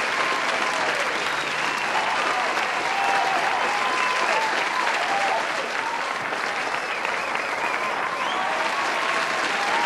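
A large crowd applauding steadily, with voices cheering over the clapping.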